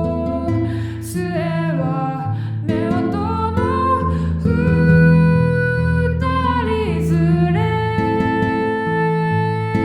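Enka-style music: a melodic lead that slides and bends between notes over sustained accompaniment chords, with plucked guitar.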